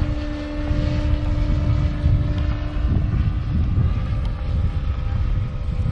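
Distant drone of a radio-controlled Zero model plane's engine in flight, its steady tone fading somewhat after the first couple of seconds, under heavy wind rumble on the microphone.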